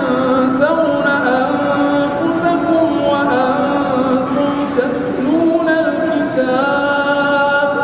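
A Moroccan reciter's solo melodic Quran recitation (tajweed), one male voice drawing out long held notes that step and bend slowly in pitch.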